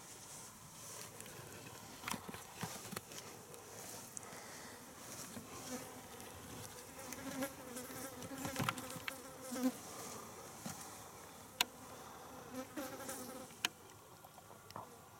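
A flying insect buzzing in a low, wavering hum that comes in about a third of the way through and fades near the end, with scattered sharp clicks and scuffs of movement over dry ground.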